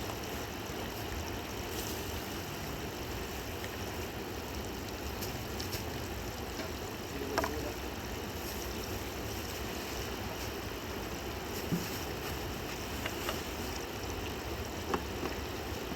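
Steady rush of a fast-flowing river, with a few faint clicks or knocks now and then.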